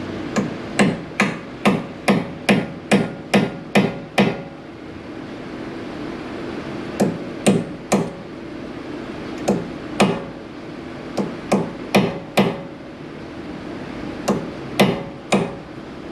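Hammer striking a center punch, metal on metal, to knock in the staked lip of a Honda Civic's front axle nut so the nut can be freed. A quick run of about ten blows comes first, then after a pause come short groups of two to four strikes.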